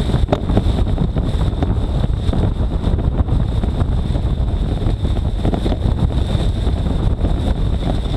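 Jeep driving with wind buffeting the microphone, mixed with the steady rush and crackle of tall weeds being shredded by a mower blade rigged to the Jeep's side. A thin, steady high whine runs through it.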